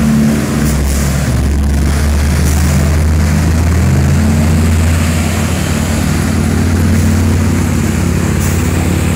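Heavy diesel truck engines running together in a steady, deep, unbroken drone.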